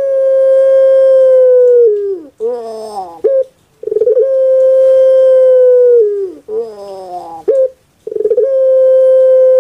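Puter pelung dove (Streptopelia risoria) cooing loudly in repeated phrases: three long, steady, held notes of about two seconds each, each bending down at its end, with short falling notes in between.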